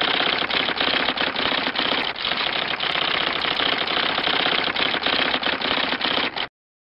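Rapid typing clatter, a sound effect of many fast key clicks, that stops abruptly about six and a half seconds in.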